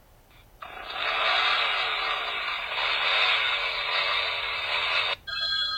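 A phone ringtone of loud static-like hiss that starts about half a second in, runs for about four and a half seconds and cuts off suddenly. Near the end, the next ringtone starts with steady electronic ringing tones.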